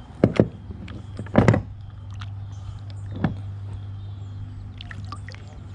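A few sharp knocks and clatters over a steady low hum: two close together at the start, a louder one about a second and a half in, and another a little after three seconds.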